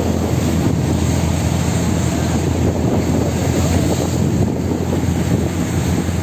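Outrigger fishing boat's engine running steadily at cruising speed, a low even drone, mixed with wind rushing over the microphone and water splashing off the hull in choppy sea.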